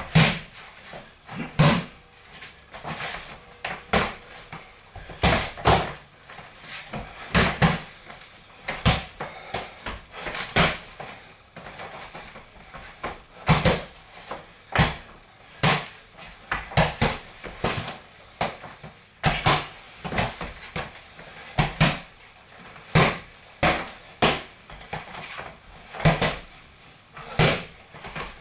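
Boxing gloves smacking punch mitts, sharp slaps landing in quick combinations of two or three punches with short pauses between them.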